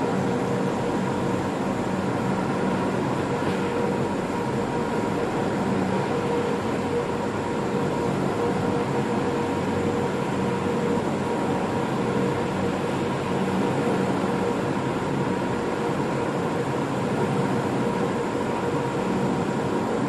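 Vacuum pump running steadily to evacuate the lamination bag, a constant mechanical hum with a few held tones and no change.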